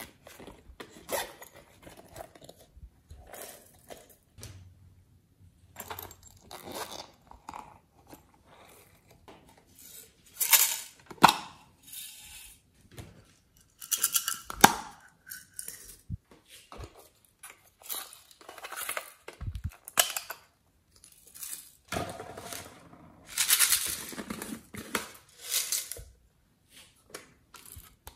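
Hands handling small silicone and plastic toys, including a zippered silicone pouch: irregular scraping, rubbing and clicking noises in short bursts, louder in a few spots.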